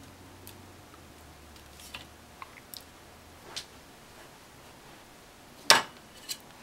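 Small scattered clicks and taps from handling a tiny surface-mount capacitor and tweezers on a work mat, with one sharp, louder click near the end.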